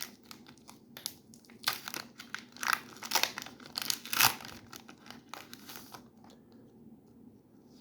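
Foil wrapper of a Pokémon trading card booster pack crinkling and tearing as it is opened by hand: a run of sharp crackles for several seconds, loudest a little past the middle, dying down near the end.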